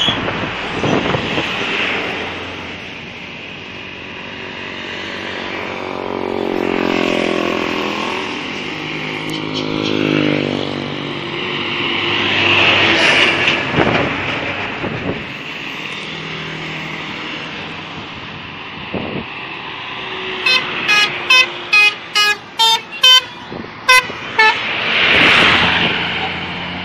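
Road traffic passing, with engines swelling past one after another. About two-thirds of the way in, a bus's telolet musical horn plays a quick run of about ten short multi-tone toots, and another vehicle passes just after.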